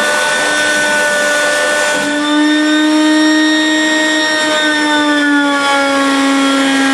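Wet/dry shop vacuum running, its hose sucking leftover water out of a toilet tank and bowl: a loud steady motor whine whose pitch shifts slightly about two seconds in.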